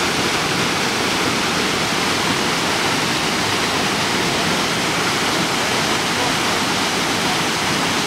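Steady, unbroken rush of a mountain waterfall pouring over rocks into the pool below.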